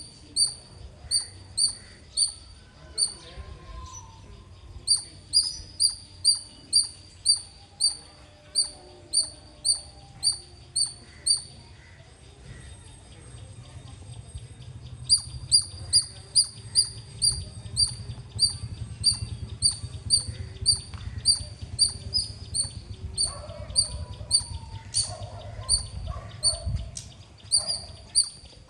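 Squirrel chirping: a run of short, sharp, high-pitched chirps at about two a second, pausing for about three seconds near the middle and then starting again, over a low background rumble.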